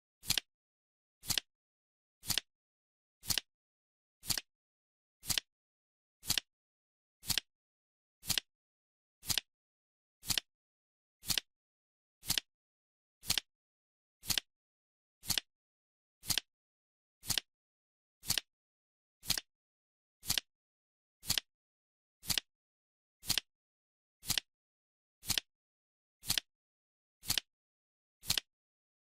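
Clock-style timer ticking once a second, each tick a short sharp click with silence between.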